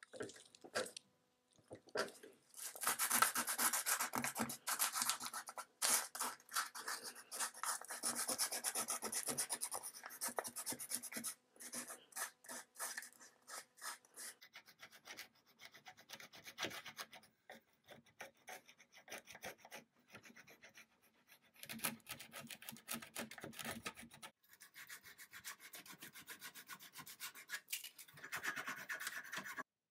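Hand-sanding painted wood with sandpaper: irregular scratchy rubbing strokes, thick at first, sparser in the middle, then picking up again near the end.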